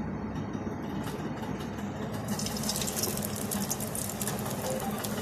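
Cornflake-crusted chicken ball frying in hot oil in a pan. A crackling sizzle starts suddenly about two seconds in, as the ball goes into the oil, over a steady low hum.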